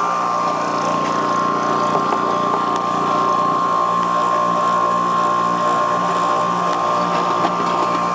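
Bench grinder fitted with a wire wheel running at full speed, a steady high whine over a motor hum.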